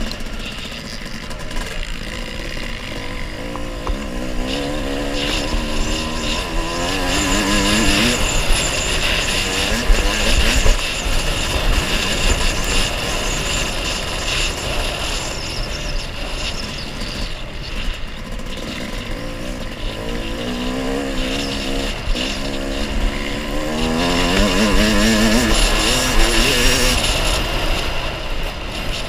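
Dirt bike engine under way, heard from the rider's helmet. Twice the revs climb in steps as it accelerates and shifts up: a few seconds in, and again near the end.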